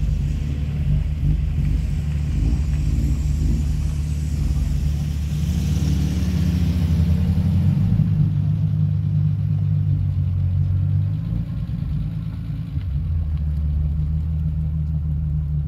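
Classic car engines running at low speed close by, a steady low idle burble. Around the middle one car pulls past and away with a swelling, then fading rush.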